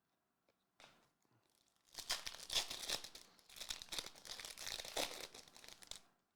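Foil wrapper of a trading card pack being torn open and crinkled, a dense crackling from about two seconds in that stops just before the end.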